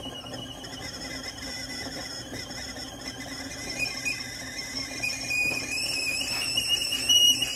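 Fishing reel's drag squealing steadily as a hooked fish pulls line off, growing louder near the end.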